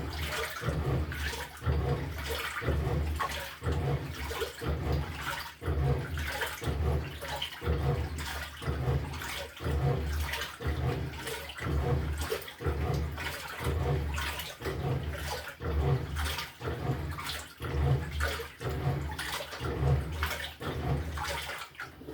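LG top-loading washing machine churning a full drum of water and laundry: the pulsator swishing back and forth, the water sloshing in rhythmic surges about once a second.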